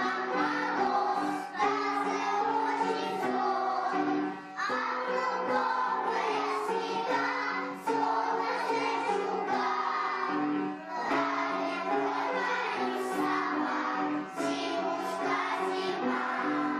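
Children singing a song together to a recorded backing track with a steady accompaniment.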